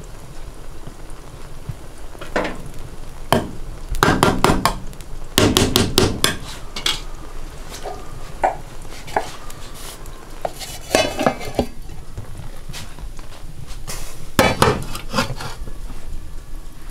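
Irregular clinks and knocks of metal utensils against an aluminium cooking pot, in several short bursts, some with a brief metallic ring. Near the end the pot lid and a heavy stone weight are set on top.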